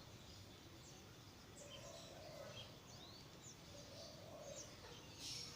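Faint outdoor ambience with many short, high bird chirps scattered throughout.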